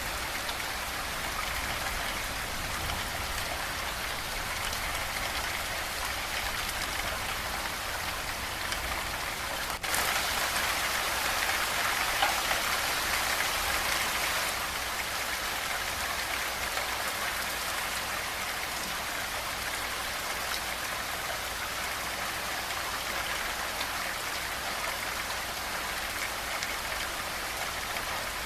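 Steady rain falling, an even hiss of drops. About ten seconds in it turns abruptly heavier for four or five seconds, then settles back to a steady fall.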